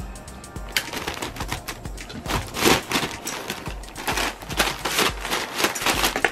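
Crumpled brown kraft paper crackling and rustling under a cat walking and scrambling through it, in quick irregular crinkles that grow louder after about two seconds. Faint music fades out in the first second.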